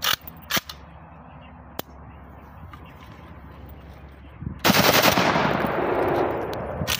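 An AK-47 copy firing a long fully automatic burst, starting about four and a half seconds in and still going at the end. Before it, a few sharp clicks.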